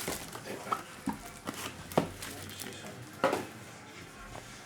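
Scattered light clicks and taps as trading cards and their packaging are handled and set down on a table, with sharper taps about 2 and 3 seconds in.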